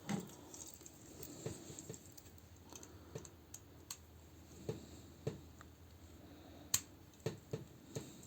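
Scattered light clicks and taps from handling a plastic action figure's parts and a small screwdriver, about a dozen in all, the sharpest a little under seven seconds in.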